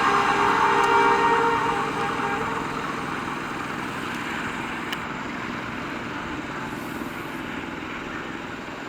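Diesel-hauled express train passing, its rumble fading as it moves away. Steady tones, likely the end of its horn, die out about two seconds in.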